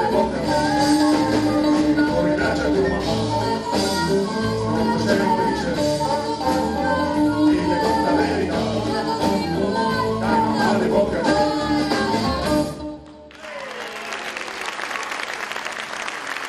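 Live band playing a Latin-style song with a steady beat, a woman singing over electric guitars, keyboard and drums; the music stops abruptly about 13 seconds in, and audience applause follows.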